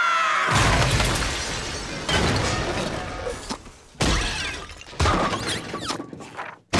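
Cartoon crash sound effects of a makeshift wooden plane smashing into a building: a loud crash with breaking and shattering about half a second in, then several more smashing impacts about two, four and five seconds in, each dying away.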